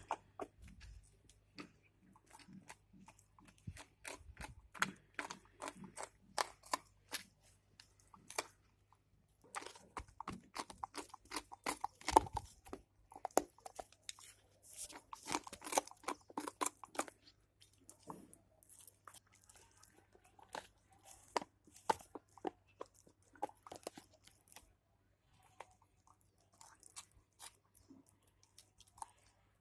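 German Shepherd puppy gnawing on a calcium bone: irregular crunching and cracking bites, densest in the middle and sparser near the end.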